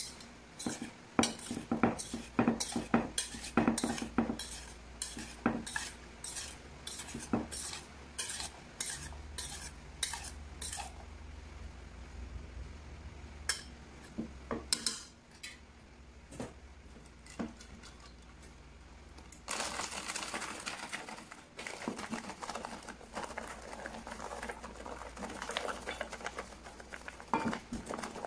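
Metal kitchen utensils clinking against dishes in quick strokes, about two a second, for the first ten seconds or so, then only a few clinks. From about twenty seconds in, a steady sizzle of battered tempura mushrooms frying in hot oil.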